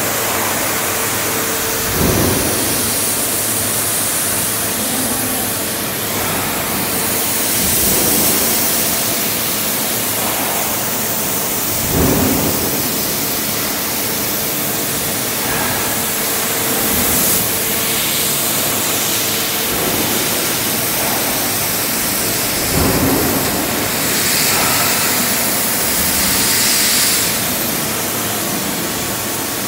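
Prima Power Optimo five-axis laser cutter cutting a pressed sheet-metal panel: a steady loud hiss with a faint steady hum underneath. A few dull thumps come through, about 2, 12 and 23 seconds in.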